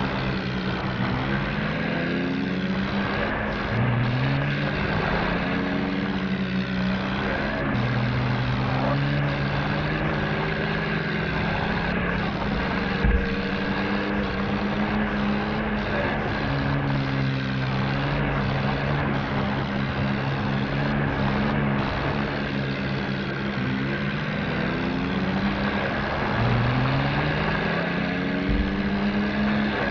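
Vehicle engine running steadily under load off-road, its pitch rising in a sweep several times as it revs up.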